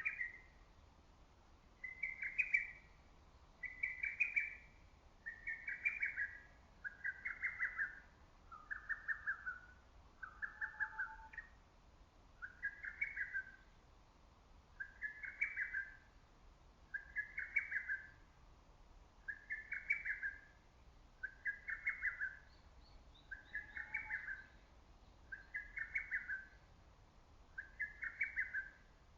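Lesser cuckoo singing its quick, pulsed phrase over and over, about one phrase every two seconds. A few phrases near the middle dip lower in pitch before rising back.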